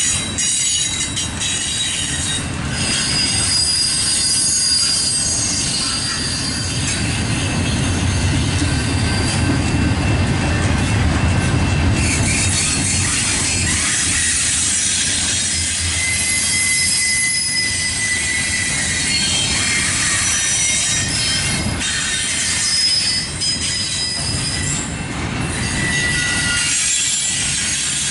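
Double-stack intermodal well cars rolling past at close range: a steady rumble of steel wheels on the rails, with high-pitched wheel squeal coming and going over it.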